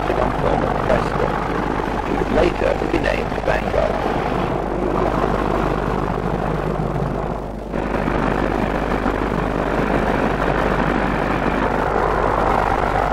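Railway locomotive running, a steady dense mechanical noise. A little over halfway through, the sound briefly dips and changes abruptly.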